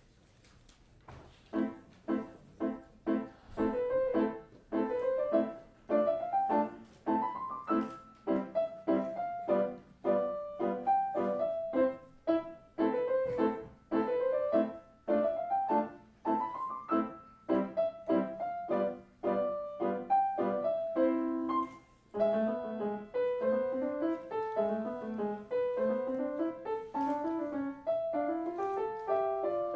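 Solo grand piano playing, starting about a second and a half in with separate notes in a regular rhythm and rising and falling lines, turning to a smoother, flowing passage after about 22 seconds.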